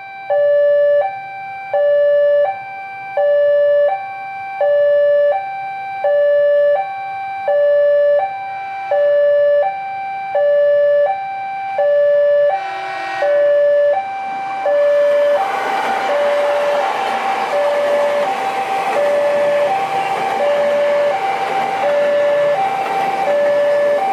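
Railway level-crossing warning alarm sounding an alternating two-tone electronic ding-dong, switching pitch about every 0.7 s. From about 15 seconds in, a loud rushing noise, a train passing over the crossing, rises under the alarm and continues.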